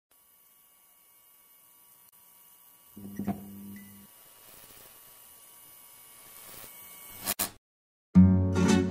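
Logo-intro sound effects: a steady electric buzz and hum. About three seconds in a low buzzing tone with a click sounds for about a second, then a hiss swells and ends in a sharp hit about seven seconds in. After a brief silence, acoustic guitar music begins near the end.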